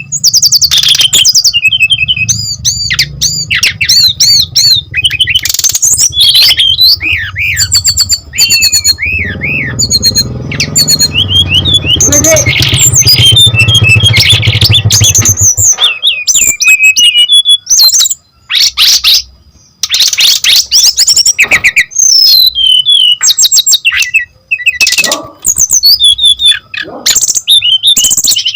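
Brown-chested jungle flycatcher singing a rapid, varied song of whistles, trills and chirps, broken by brief pauses. A low hum runs underneath through the first half.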